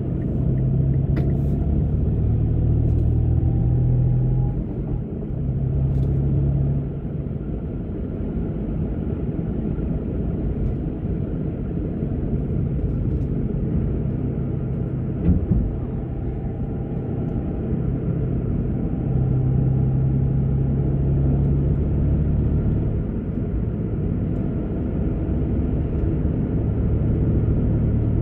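Car engine and road noise heard from inside the car, a steady low rumble with the engine note swelling at times. A single thump about fifteen seconds in.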